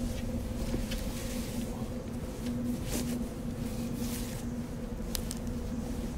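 A steady low ambient hum with a constant droning tone and a low rumble underneath, broken by a few faint soft clicks.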